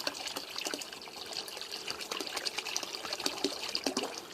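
Non-toxic RV antifreeze pouring from a jug into a bucket: a steady splashing gush of liquid filling the bucket.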